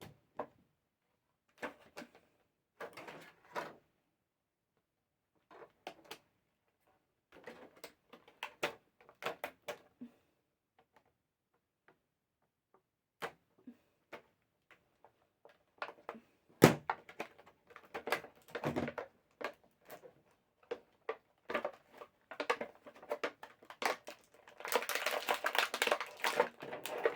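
Plastic action-figure packaging and accessories being handled and pulled apart: scattered clicks, taps and crinkles with short pauses, turning into a continuous stretch of crinkling and rustling near the end.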